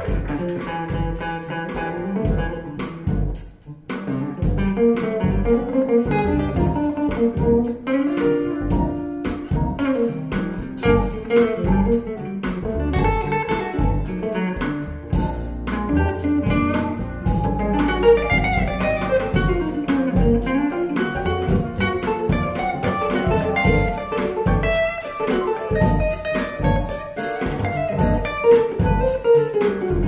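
Guitar-led music with bass and a steady beat, played back through KEF LS50 Black Edition bookshelf speakers as a listening sample of how they sound.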